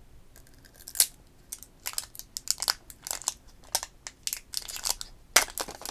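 Thin matte plastic wrapping crinkling and crackling as it is peeled off a phone charger by hand. It comes as a quick, uneven run of small crackles starting about half a second in.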